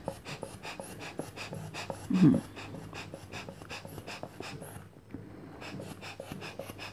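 Rubber hand-pump bulb inflating a three-layer inflatable neck traction collar, squeezed over and over, giving a quick, even train of air puffs as the collar fills. One short louder sound about two seconds in.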